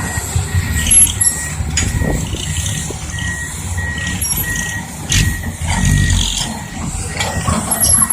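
Diesel heavy machinery running, with a backup alarm beeping steadily about one and a half times a second. There is a sharp knock about five seconds in.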